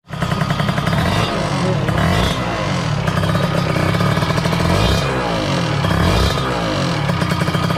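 Kawasaki Ninja R's 150 cc single-cylinder two-stroke engine running, its pitch rising and falling as the throttle is opened and closed, with a rough 'ngik ngik' noise from the cylinder block. The roughness comes from a worn, carbon-crusted piston and a cylinder bore that is starting to score and wear.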